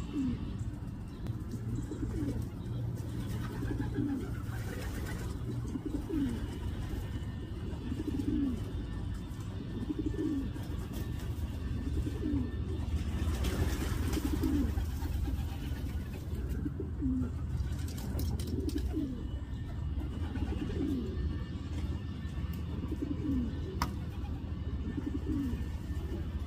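Pigeon cooing: a short low coo repeated about every one and a half to two seconds, over a steady low hum.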